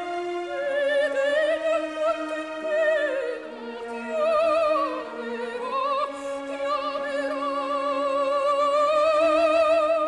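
Background music: an operatic solo voice singing with heavy vibrato over sustained orchestral accompaniment, holding a long note near the end.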